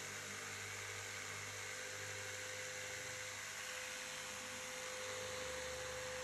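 Steady hiss with a low hum and one constant faint tone throughout, with no distinct cutting or motor sound standing out.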